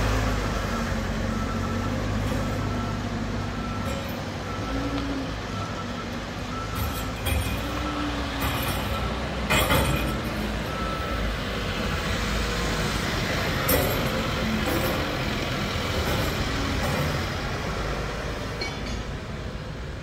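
Diesel backhoe loaders running as a steel trench plate is moved, with a reversing beeper sounding about once a second until about twelve seconds in. Several clanks of the steel plate, the loudest about ten seconds in.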